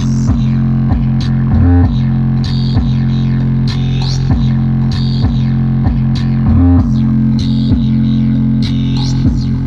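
Loud bass-heavy guitar music with a regular beat, played through a 2001 Renault Laguna 2's factory Cabasse car audio system as a bass test.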